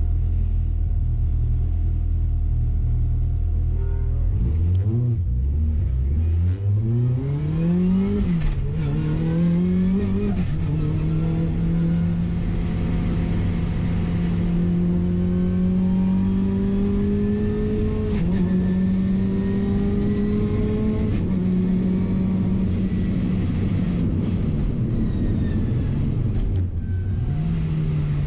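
Car engine idling steadily for a few seconds, then pulling away and accelerating: the revs climb and drop back sharply several times as the gears change, then run on at fairly steady, moderate revs with a few more shifts.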